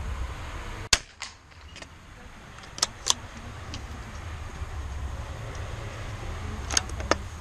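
A .22 LR bolt-action rifle fires a single sharp shot about a second in. Light metallic clicks of the bolt being worked and a fresh cartridge loaded follow over the next few seconds.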